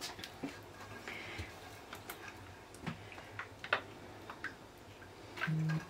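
Scattered light clicks and taps over a low steady hum, with a short, low, steady tone sounding just before the end.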